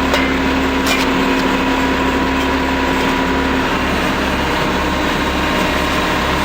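Engine of a digging machine running steadily. A steady low tone in it stops a little past halfway, and there is one brief knock about a second in.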